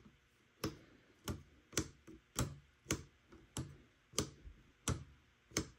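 Steady ticking: single sharp clicks repeating at a fairly even pace, a little under two a second.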